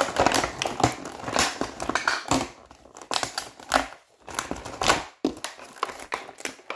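Thin clear plastic blister packaging crinkling and crackling as it is handled, in an irregular run of quick crackles with a couple of brief lulls.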